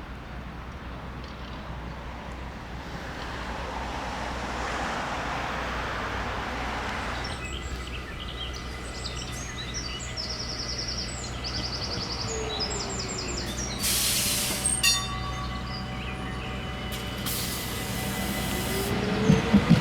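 Ambient sound beside a tram line: a steady low hum with a swell of passing noise, high chirping, and two short hissing bursts. Near the end, a tram's wheels begin to rumble and clatter on the rails.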